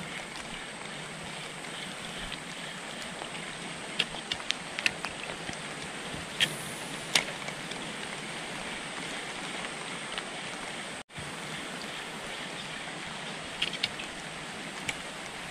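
Steady rush of flowing river water, with a few short, sharp clicks and taps scattered through it.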